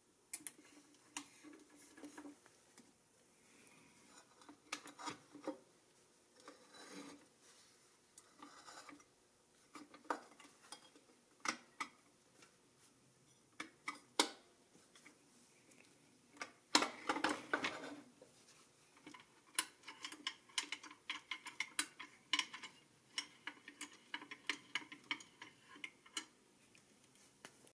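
Small clicks, taps and light metal rattles of a restored pressed-steel Tonka toy jeep being handled and its parts moved. A louder rattle comes about two-thirds of the way through, followed by a run of quick small ticks.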